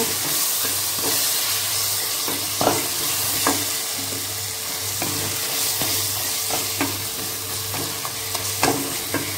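Tomato and onion masala sizzling in oil in a metal pressure cooker while a wooden spatula stirs and mashes it, with a steady frying hiss and occasional short scrapes and knocks of the spatula against the pot.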